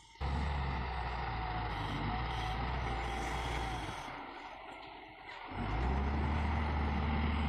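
Heavy diesel engine of a construction machine running with a steady low drone. It cuts in abruptly just after the start, fades away a little past the middle, and cuts back in suddenly about two seconds before the end.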